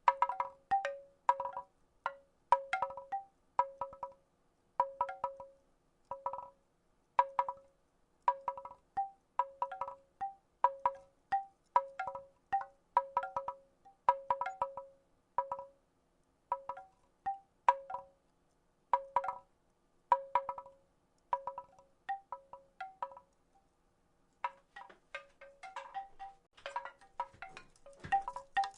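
Wooden rattle shaken in clusters of quick clacks, each ringing briefly on a few fixed notes, about one cluster a second. There is a short pause about 24 seconds in, after which the clacks become busier and denser.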